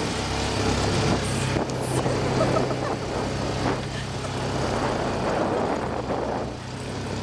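Four-wheeler (ATV) engine running steadily, with a low hum that strengthens for a few seconds in the middle and then eases off.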